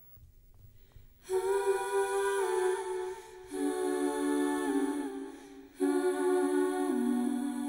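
Wordless humming of a lullaby melody in slow, held phrases. It starts after about a second of near silence and comes in three phrases.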